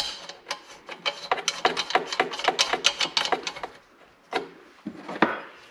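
Quick run of small metallic clicks, several a second, as a copper pipe fitting is reconnected and worked tight on an air compressor. The clicking thins out to a few single clicks near the end.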